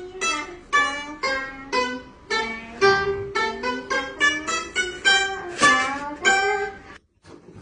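Background music: a plucked string instrument, like a guitar, playing a melody of short notes about two a second, cutting off abruptly about seven seconds in. A few faint clicks follow.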